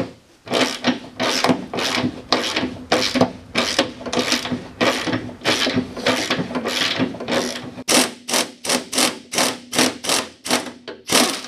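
Rhythmic scraping or rasping strokes worked by hand against a snowmobile's aluminium tunnel, about two to three a second, quicker and sharper in the last few seconds.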